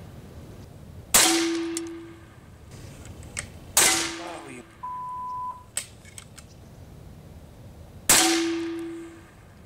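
A Steyr LG110 High Power PCP air rifle fired three times, each a sharp crack followed by a short ringing tone. About halfway through there is a brief steady beep.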